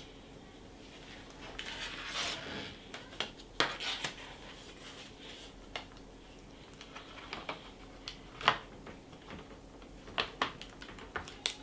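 Light handling clatter of Commodore 16 keyboard parts being reassembled: scattered small plastic clicks and taps, with a short rustle about two seconds in and the sharpest click a little past the middle.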